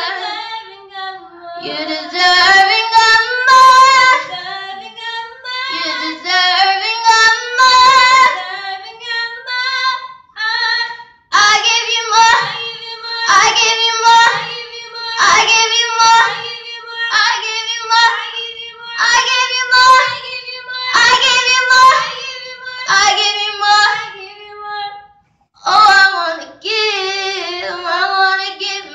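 Young girls singing a slow song into a handheld microphone, with long held notes and two short breaks, about a third of the way in and near the end.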